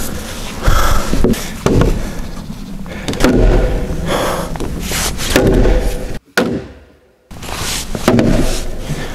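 Heavy blows on the timbers of a hanok timber frame, a series of thuds about a second apart, each ringing briefly. A steady low rumble runs underneath, and the sound drops out for about a second near the middle.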